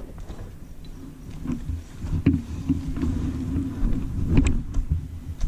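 Polaris RZR Turbo S side-by-side's turbocharged twin-cylinder engine running at low throttle while the machine crawls over eroded, rutted ground. The engine gets louder about two seconds in, with a couple of sharp knocks from the chassis over the ruts.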